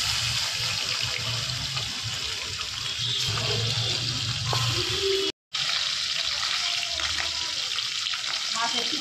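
Tilapia pieces frying in hot oil in a wok, a steady sizzling hiss, cut off briefly about five seconds in.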